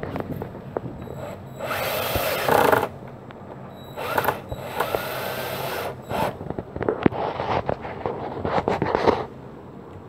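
Black+Decker cordless drill/driver driving screws into the wooden floor of a birdhouse, running in three bursts of one to two seconds each, with clicks and knocks between them.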